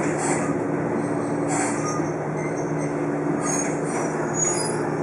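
Toyama Chiho Railway 14760-series electric train running, heard from on board: a steady low hum with short, faint high squeals from the wheels now and then.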